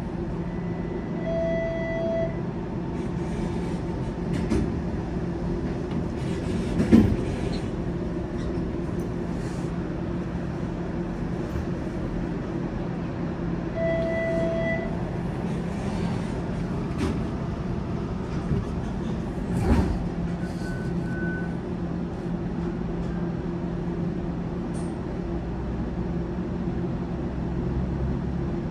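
Steady electric hum of a stopped streetcar heard from inside, with two short beeping tones, one about a second in and one about halfway through, and a sharp knock about a quarter of the way in.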